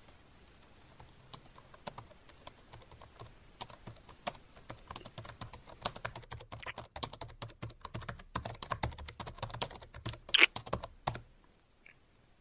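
Typing on a computer keyboard: a run of quick key clicks, sparse at first and growing busier, then stopping about a second before the end.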